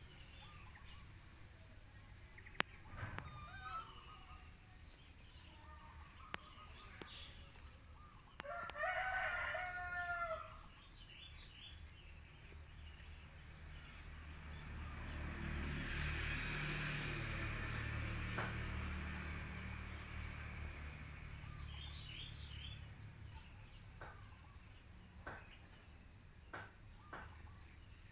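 A rooster crowing once, about nine seconds in, one call of about two seconds. Later a low rumble swells and fades over several seconds, with a few faint sharp clicks scattered through.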